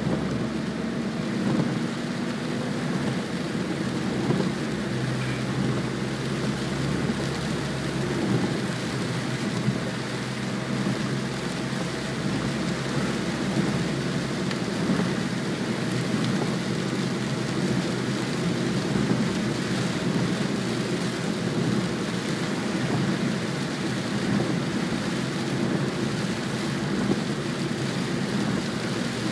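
Steady rain on a moving car's windshield and body, mixed with tyre noise on the wet road and a low rumble, heard from inside the cabin.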